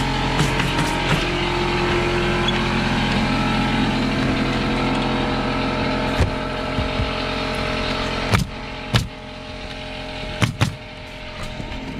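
Pneumatic roofing nailer firing nails into asphalt shingles, a handful of sharp shots in the second half, two of them close together near the end. Beneath them an air compressor runs with a steady hum that drops away about eight seconds in.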